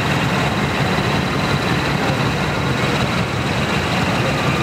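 Decorated truck's diesel engine idling steadily: a dense low rumble with no revving.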